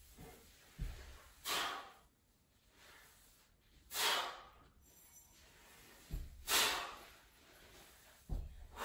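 A man breathing out hard three times, about two and a half seconds apart, each a short rushing exhale, while doing dumbbell split squats. Soft low thumps come between the breaths.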